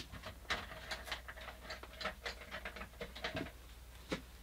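Faint, irregular light clicks and ticks in quick succession from small tools being handled at a painting desk.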